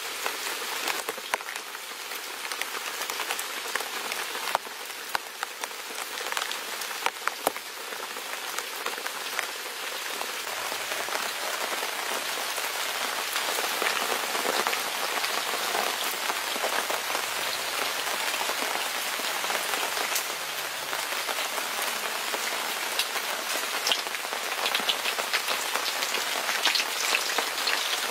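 Food frying in hot oil in a pan: a steady sizzle with scattered crackles and pops, slowly getting louder toward the end.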